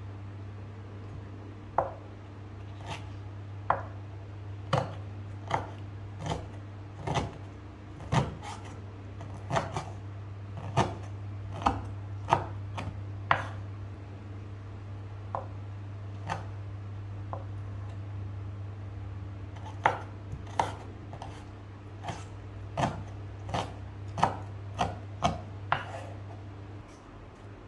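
Kitchen knife chopping soaked black fungus on a wooden cutting board: irregular sharp knocks of the blade on the board, sparser in the middle and coming quicker near the end, over a steady low hum.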